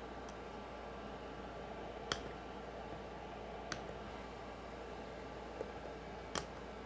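Side cutters snipping through the plastic cross braces of an RC truck chassis: a few sharp clicks a second or two apart, the loudest near the end.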